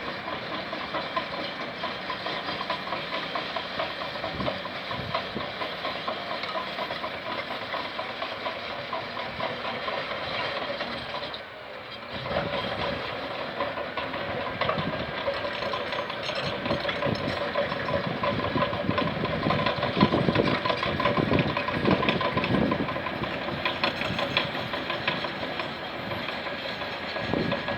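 Bulldozer's diesel engine running under load, with a steady stream of knocks and rattles. It drops briefly about twelve seconds in, then comes back louder and rougher.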